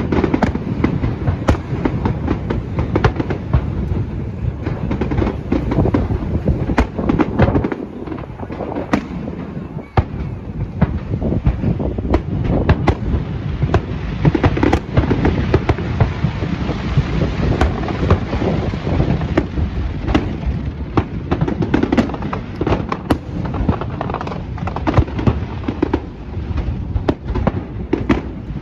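Fireworks display: a dense, continuous barrage of bangs and pops over a rumbling boom, with a thicker stretch of crackling about halfway through.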